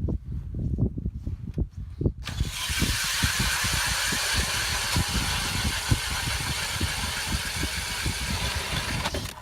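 Low irregular knocks for about two seconds, then a Mora Ice Arctic EZ Cut 8-inch ice auger, spun by a power drill through an adapter, starts up and cuts steadily into the ice with a loud even hiss of shaved ice. It stops abruptly near the end.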